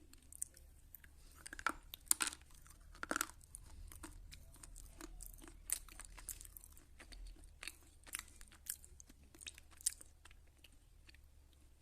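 A person biting and chewing slate pencil close to the microphone: irregular, dry crunches and crackles, the loudest bites about two and three seconds in, then smaller crunches as it is chewed.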